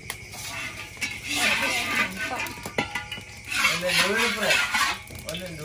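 Metal spatula scraping and clinking against a large steel wok as it is stirred, with a few sharp knocks of metal on metal.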